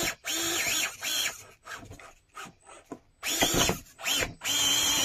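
Micro-scale RC rock crawler's small electric motor and drivetrain whining in short throttle bursts, about six in all, in two groups. The pitch rises and falls with each blip as the truck picks its way up the rocks.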